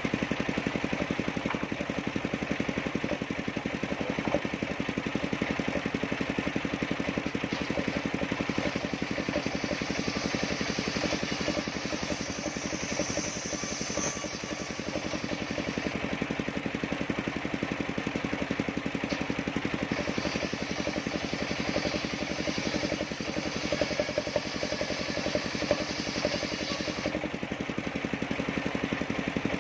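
Engine-driven circular-blade sawmill running steadily, with a fast even engine pulse and no change in speed.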